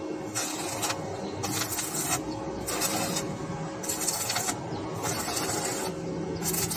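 Portable welding machine humming steadily while the welding arc crackles in short bursts about once a second, as the newly replaced welding terminal is tested under load.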